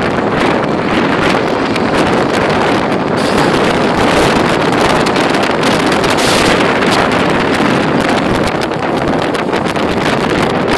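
Strong wind buffeting the microphone: a steady, loud rushing with no letup.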